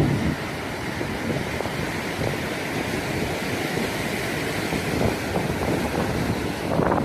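Gale-force wind buffeting the microphone over rough storm surf, a dense, steady rush with heavy low rumble.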